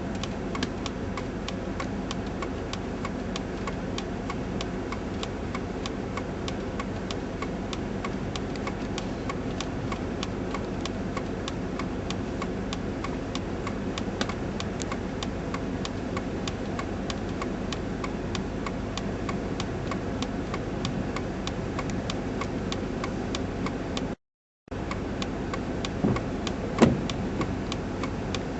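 Steady vehicle hum heard from inside a car, with a regular light ticking about three times a second. It breaks off briefly near the end, and a couple of short knocks follow.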